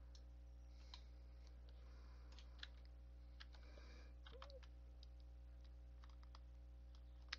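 Near silence: a few faint, scattered clicks of a computer mouse and keyboard over a steady low electrical hum.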